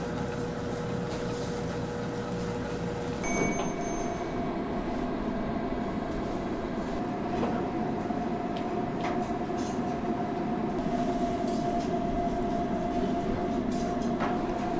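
Steady low hum and rumble of shop ambience, with a held machine-like tone that shifts to a higher pitch about three seconds in, and a few faint clicks.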